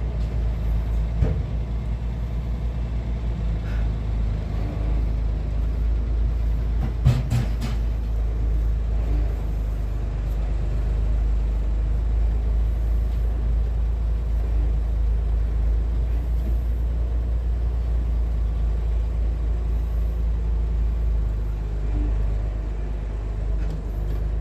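Heavy engine running steadily at a constant speed, a low drone, with a couple of brief knocks, the loudest about seven seconds in.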